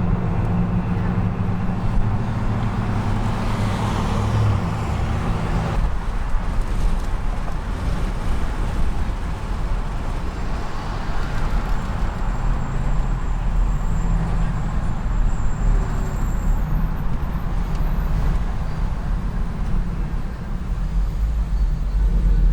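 Motor vehicle engine and road noise, a steady low rumble. The engine note eases about six seconds in.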